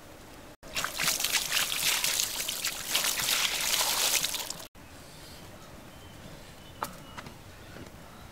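Water poured over fish in a wicker basket, splashing onto the fish and through the weave as they are rinsed. The pour lasts about four seconds and stops abruptly, followed by low background with a single light tap.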